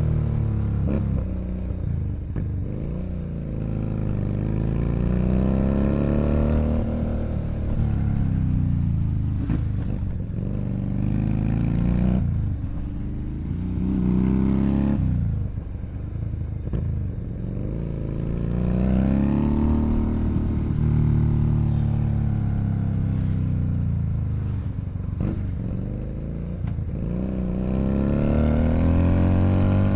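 Keeway SCR 250V motorcycle engine through a shortened custom exhaust, ridden and revving. Its pitch climbs and falls again several times, with sharp drops about 12 and 15 seconds in.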